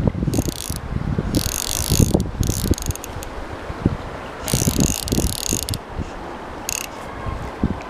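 Hardy Ultralite CC 1000 fly reel's ratchet buzzing in about five short bursts while a hooked chub is played on a bent fly rod. Gusts of wind rumble on the microphone underneath.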